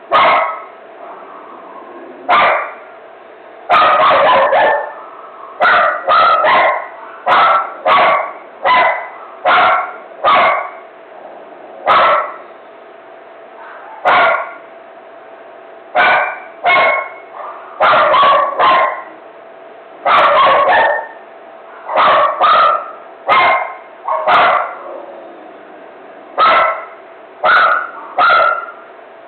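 A dog barking over and over in a frenzy, loud sharp barks coming singly or in quick pairs about every second, with brief pauses between runs. A faint steady hum runs underneath.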